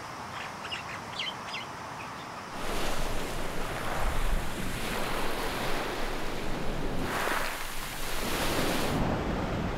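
Surf washing onto a beach in a steady rush of waves. It grows louder about two and a half seconds in and swells again near the end.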